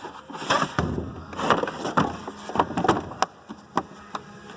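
Tools and kit cases being picked up and moved around in a toolbox drawer: a run of irregular clacks and knocks with some rustling.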